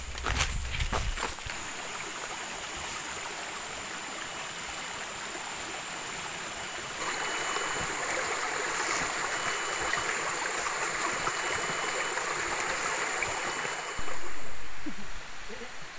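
Shallow forest stream trickling over rocks, the water sound coming up about seven seconds in and swelling briefly louder near the end. A high chirp repeats every second or two over it.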